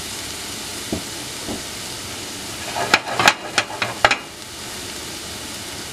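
Chopped onion and garlic sizzling steadily in oil and butter in a stainless steel frying pan over a gas flame, the garlic turning golden. About three seconds in, a quick run of sharp metal clanks as the pan is shaken on the burner grate.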